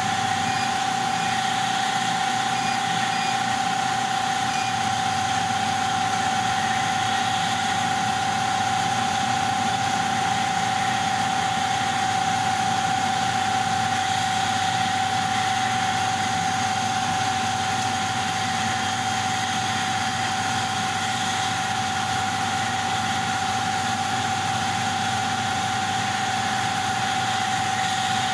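Bao Yuan Tong CNC laser cutting machine running through a cut: a steady mechanical hum with a constant high whine.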